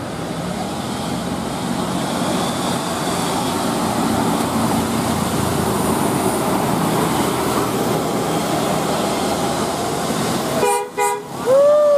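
Steady road and engine noise of a passing bus, then near the end a multi-tone telolet bus horn: two short chord blasts followed by a louder note that bends up and back down.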